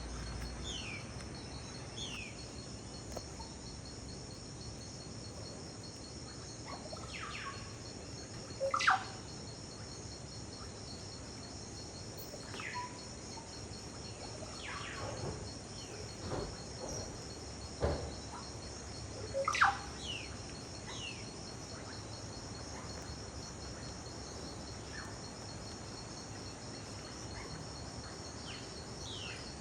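Rainforest insect chorus, a steady high trilling like crickets, with birds giving short downward-sliding whistled calls now and then, loudest about 9 and 20 seconds in.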